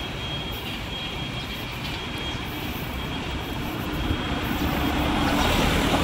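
Low, steady rumble of motor vehicle traffic, growing louder over the last couple of seconds as it comes closer.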